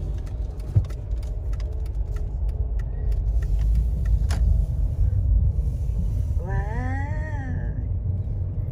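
Steady low road and engine rumble heard from inside a moving car's cabin, with a light knock about a second in. About six and a half seconds in, a person's voice hums briefly, rising and falling in pitch for about a second.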